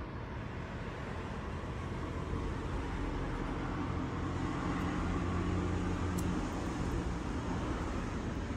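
Steady road-traffic noise, with a vehicle's low rumble swelling and fading about halfway through.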